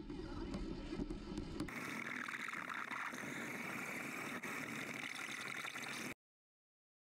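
Cordless drill turning a step drill bit through a stainless steel bar submerged in water, picked up by a camera sitting in the water. About two seconds in, the low hum drops away, leaving a steady hiss, and the sound cuts off suddenly about six seconds in.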